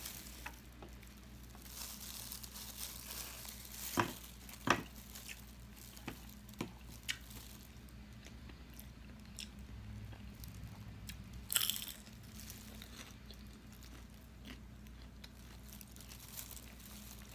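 Close-up mouth sounds of eating: chewing with scattered crunchy bites and wet clicks, a few sharper crunches standing out, the loudest just before the middle.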